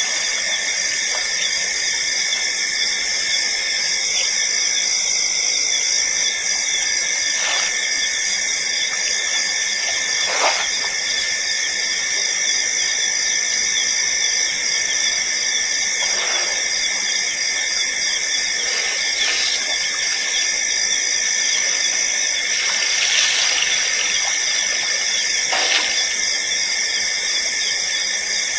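Steady, high-pitched chorus of night insects, several shrill pitches sounding together without a break. A few brief sharp sounds cut through it now and then.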